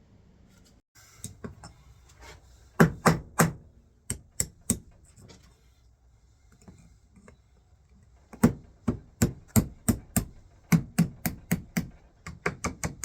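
Repeated sharp hammer knocks on wood: a few light taps, three hard strikes about three seconds in, then a steady run of strikes, about two or three a second, from about eight and a half seconds on.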